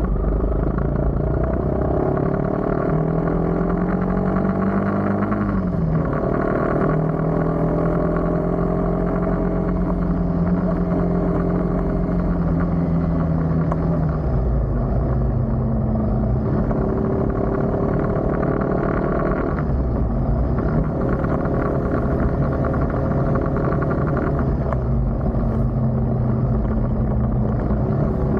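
A road vehicle's engine running under way, over a low rumble of road noise. Its pitch climbs and then falls sharply about five seconds in, as at a gear change, then holds steady, and it shifts down again around fourteen and twenty seconds in.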